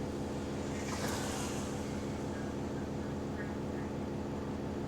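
Bus engine running steadily with a small exhaust leak, a constant drone, with a short hiss about a second in.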